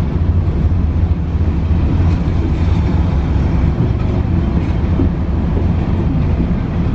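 Freight train of tank cars rolling past, a steady low rumble of wheels on rail, heard from inside a car.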